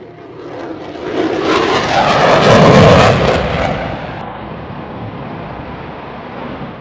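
F-22 Raptor's twin F119 turbofan jet engines passing overhead. The jet noise swells to a loud peak about three seconds in, then the high hiss drops away and a duller rumble lingers and fades.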